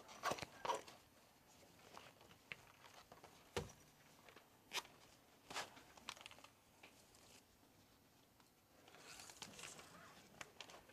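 Near silence in a small room, broken by a few faint, scattered clicks and knocks and a soft rustle of handling, as of papers and small objects at a podium.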